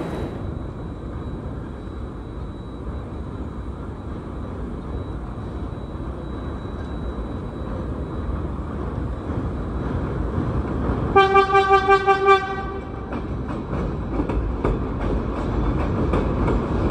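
Subway train approaching on an elevated steel structure, its rumble growing steadily louder. About eleven seconds in, its horn sounds a quick string of about five short toots over a little more than a second, and wheel clatter follows as the train draws alongside.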